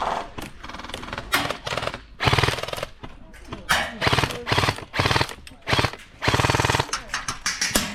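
Airsoft guns firing in several short rapid-fire bursts, each a quick buzzy rattle of shots, the longest about half a second.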